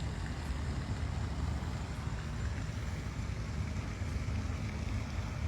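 Steady low rumble of a car being driven, heard from inside the cabin, with no sudden changes.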